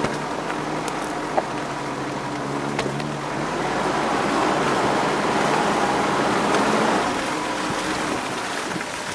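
Off-road SUV driving: its engine runs at low, steady revs. A rushing noise swells from about three and a half seconds in and eases off near seven seconds.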